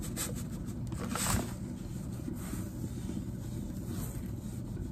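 Dry bread crumbs poured and shaken from a canister onto raw tilapia fillets, a light scattered rustle in the first second and a half that peaks briefly just after a second in. Under it runs a steady low hum.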